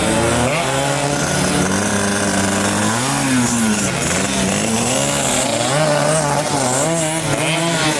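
Small racing motorcycle engines running and being revved: the pitch swells up and falls back about three seconds in, then rises and dips again in shorter blips.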